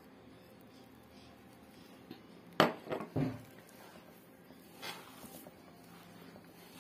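A hand kneading spiced bulgur for kısır in a large mixing bowl. A few sharp knocks and a clatter come about two and a half seconds in, with a softer knock about two seconds later, against a quiet room.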